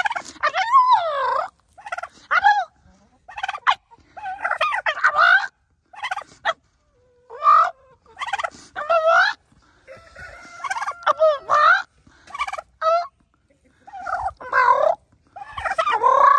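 White domestic turkey hen calling over and over in short, pitch-bending bursts, each about half a second to a second and a half long, with brief pauses between them.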